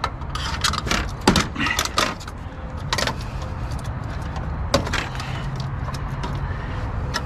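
Sharp clicks and knocks of hand tools and plastic as a power board is pried off its plastic standoffs inside a scrapped printer. They come thickest in the first few seconds and again about five seconds in, over a steady low rumble.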